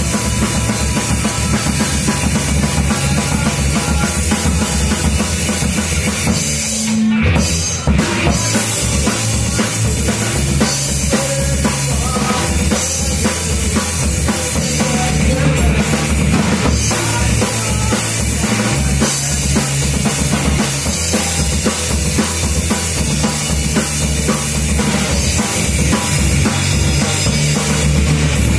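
Live rock band playing loud, with a full drum kit driving a steady beat under bass and electric guitars. About seven seconds in the band stops for a moment, then crashes back in.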